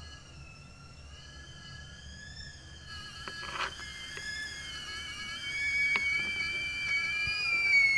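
Several high, slightly wavering sustained whistle-like tones swell louder toward the end, with two short knife taps on a wooden cutting board, about three and a half and six seconds in.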